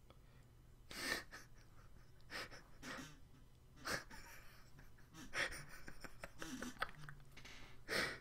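A man laughing breathily, in a string of short wheezing bursts of laughter.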